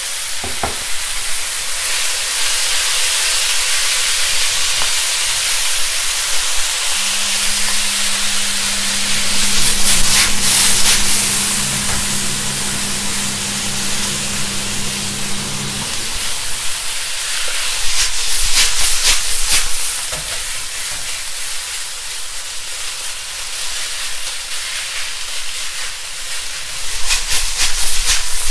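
Water hissing and sizzling loudly as it boils off in a hot wok around a block of cooked rice. A wooden spatula scrapes and taps against the wok in clusters while the rice is broken up and stirred.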